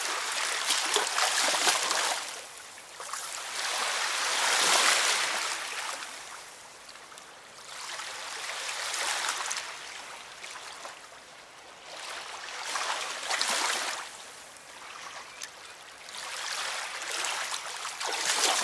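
River water washing at the shore in slow surges, a hiss that swells and fades about every four seconds.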